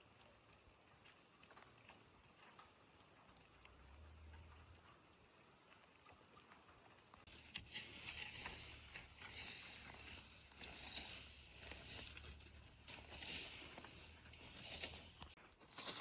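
Faint background hum for the first several seconds, then irregular rustling and scraping from about seven seconds in.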